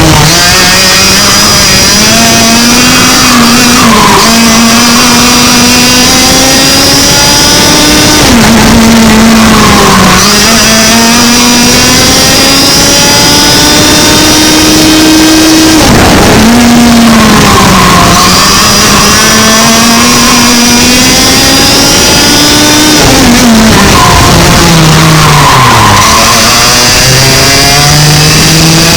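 Very loud 100cc two-stroke kart engine at full throttle over a lap. Its pitch climbs on each straight and drops sharply about five times under braking into corners, the longest climb near the middle.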